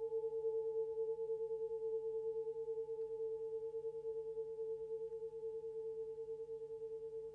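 A sustained ringing tone that slowly fades, its loudness wavering in a quick, even pulse, as from a struck bowl or bell left to ring.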